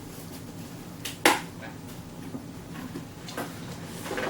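Packaging being handled while a boxed statue is worked out of its shipping box: light knocks and clatter, with one sharp knock a little over a second in.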